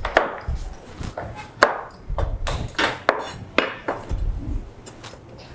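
Kitchen knife chopping vegetables on a chopping board: a string of sharp, uneven knocks, about two a second.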